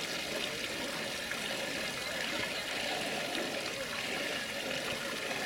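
Steady splashing and running water from a piazza fountain.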